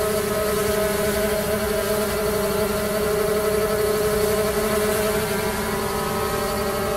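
Xiaomi Mi Drone 4K quadcopter hovering close by: a steady propeller buzz with two strong, unchanging tones.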